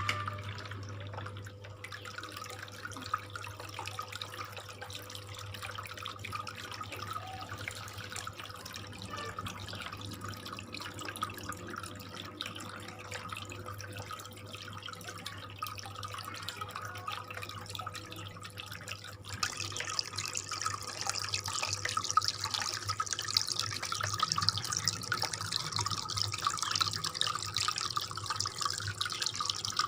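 Water trickling and splashing from a small homemade cement waterfall fountain fed by an aquarium water pump, over a low steady hum. About 19 seconds in the splashing becomes louder and brighter.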